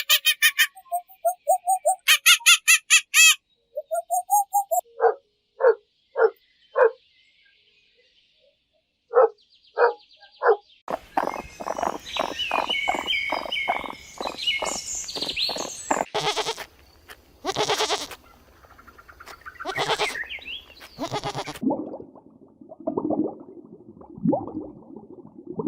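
A run of different animal calls, one after another: rapid high bird chirping in the first few seconds, then a series of short separate calls, then a denser stretch of calls with louder bursts and some lower calls near the end.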